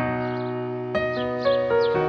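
Soundtrack music starting suddenly, held notes that move to new pitches about a second in and again shortly after. Short high falling chirps run over it from about half a second in.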